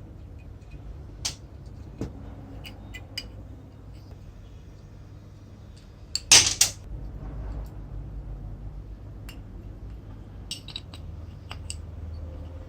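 Metal parts clinking and knocking as they are handled, with scattered light clicks and a louder clatter of several knocks about six seconds in.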